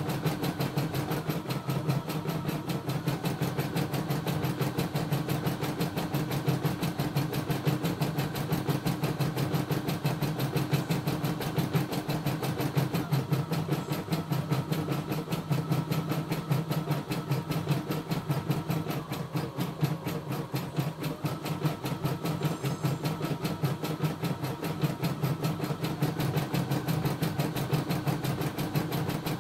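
CNY E960 computerised embroidery machine stitching a design: a steady motor hum under a rapid, even needle rhythm.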